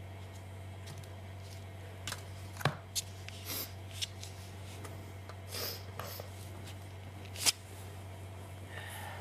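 A person climbing onto a bed and settling under a blanket: scattered soft knocks and rustles of bedding, with two sharp clicks, over a steady low hum.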